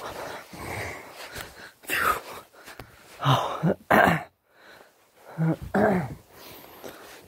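A series of short wheezy vocal sounds and moans, about six, some sliding down in pitch, with a brief quiet spell in the middle.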